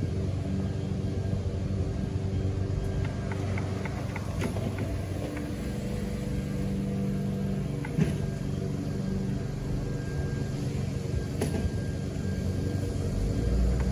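Lawn mower's small engine running steadily out of sight, with a few sharp clicks.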